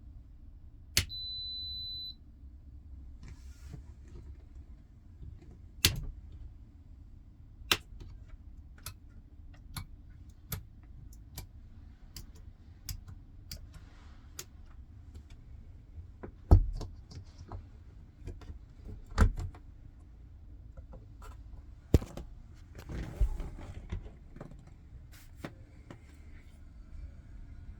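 Scattered sharp clicks and knocks at irregular intervals over a low steady hum, with a single high electronic beep lasting about a second, about a second in.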